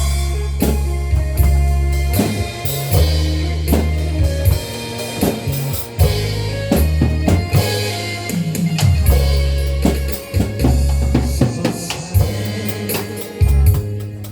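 Instrumental passage of a Korean trot song: a drum kit beat with bass drum and snare over a heavy bass line and melody, without vocals.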